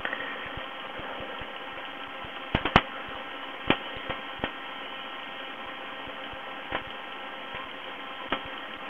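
Steady electrical hum and hiss, with a handful of sharp clicks scattered through.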